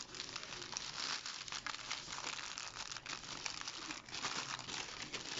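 Paper burger wrapper crinkling and rustling as it is unwrapped by hand: a continuous run of small crackles.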